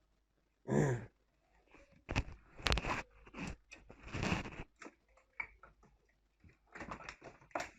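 Scattered light clicks, knocks and rustles of handling, bunched between about two and five seconds in and again near the end, with a brief voice-like sound about a second in.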